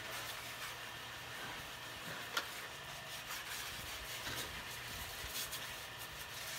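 Pressure washer spraying water onto a motor scooter: a faint, steady hiss of spray with a low hum under it.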